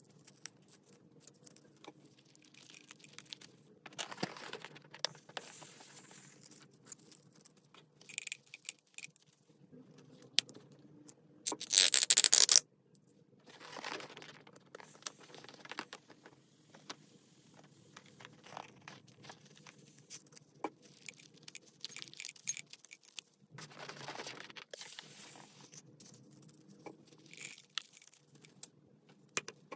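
Slime being handled and squished, with sticky crackling, small pops and clicks coming in irregular bursts, and one louder, longer hissing burst about twelve seconds in.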